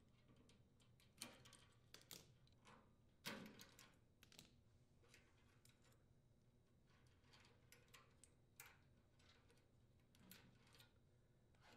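Faint, scattered clicks and rustles of insulated wires being handled and their spade connectors pushed onto the terminals of a furnace control board, over near-silent room tone.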